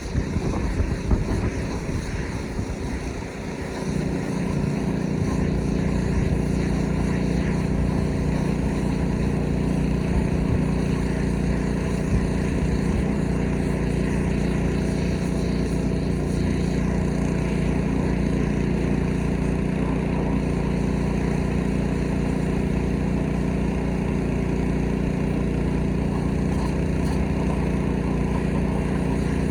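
Small gasoline engine of a pressure washer running at a steady speed. An irregular rushing noise fills the first few seconds, then the engine's steady hum takes over.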